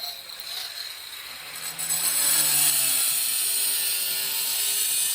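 Angle grinder with a diamond blade scoring a circle into a tile with the tip of its blade. The grinding hiss is lighter at first, then comes back louder about two seconds in as the blade bites again.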